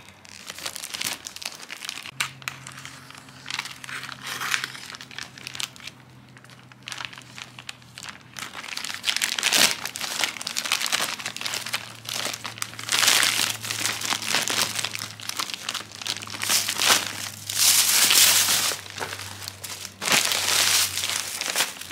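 Clear plastic polybag crinkling and rustling as it is handled and pulled off a packaged tote bag, in irregular bursts that grow louder in the second half.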